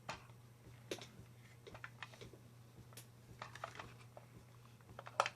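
Faint, scattered light clicks and taps of an SVD-pattern rifle and its magazine being handled, with a louder pair of clicks near the end, over a steady low hum.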